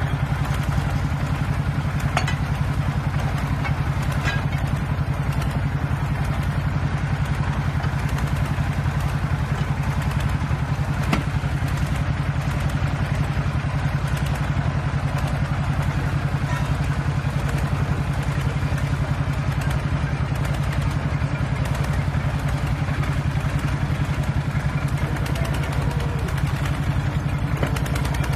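Tractor engine running steadily under load as it drives a tractor-mounted drilling rig, with a few faint clicks about 2, 4 and 11 seconds in.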